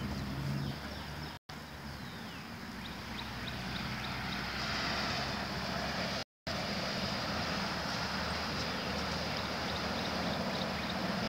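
Steady rushing background noise with a faint low hum, broken twice by brief complete dropouts in the recording.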